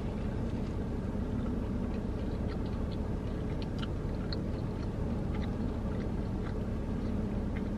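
A person chewing a mouthful of sub sandwich, with faint scattered clicks of the chewing over a steady low hum in a car cabin.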